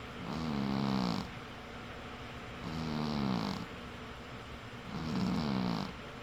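A cat snoring: three snores, each about a second long and about two and a half seconds apart, with a pitch that slides slightly downward and a breathy hiss.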